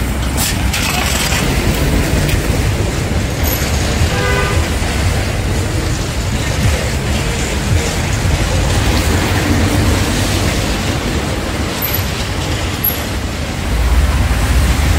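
City street traffic: cars passing on a wet road, with a short car-horn toot about four seconds in. The low rumble gets louder near the end.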